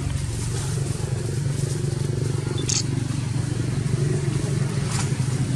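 A motor vehicle engine running steadily off-camera, a constant low hum, with a brief high click about halfway through.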